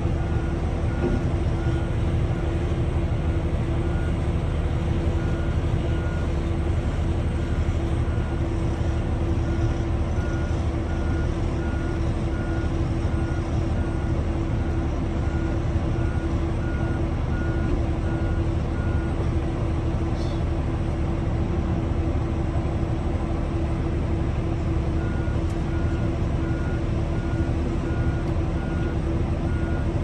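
Heavy excavator diesel engine running steadily with a deep rumble, overlaid by a travel alarm beeping at an even pace. The beeping stops for several seconds past the middle, then starts again.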